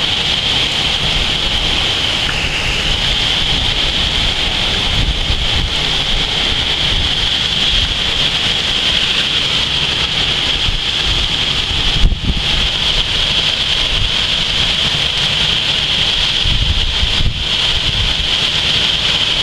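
Hurricane wind gusting outdoors over a steady high hiss, with the wind buffeting the microphone in low rumbles. A single sharp, loud knock about twelve seconds in.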